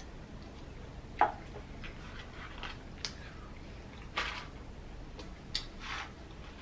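Eating and handling sounds: a few short clicks and rustles from a paper cup and a cardboard fries carton, and mouth sounds as fries are tipped into the mouth, over a steady low hum. The sharpest click comes about a second in.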